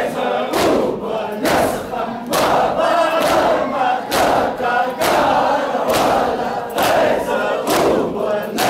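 A large crowd of men chanting a mourning lament together while beating their chests in matam. The chest slaps land in unison as sharp claps about once a second, in time with the chant.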